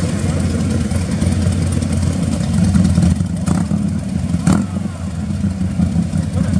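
Cruiser motorcycle engines idling with a steady low rumble. Two short clicks come about three and a half and four and a half seconds in.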